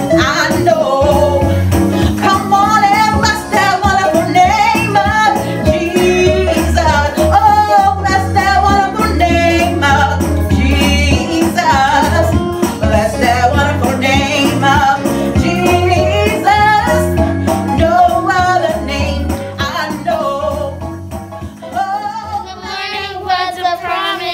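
A woman singing a gospel song into a microphone over instrumental accompaniment, her held notes wavering with vibrato over a steady low bass. The music fades down over the last few seconds.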